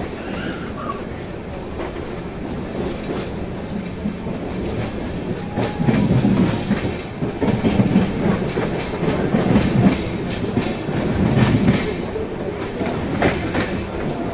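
Passenger train's wheels running on the rails, heard from an open coach door, with clickety-clack over rail joints. The train passes through a set of points in the middle, where the low rumble and rhythmic clatter get heavier, and a few sharp clicks come near the end.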